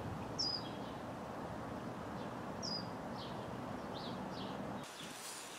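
Small birds chirping: a few short, sharply falling chirps, two of them clear, over steady outdoor background noise.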